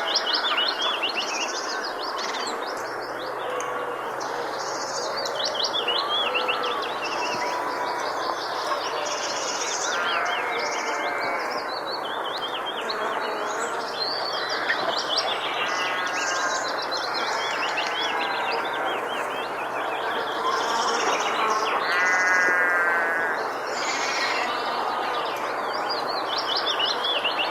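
Countryside bird chorus: many birds chirping, trilling and whistling over one another without a break, over a steady hiss of open-air background noise, with a faint low hum beneath.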